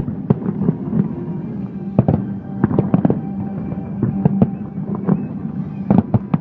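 Fireworks display: aerial shells bursting in an irregular run of sharp bangs, sometimes several within a second. Music plays steadily underneath.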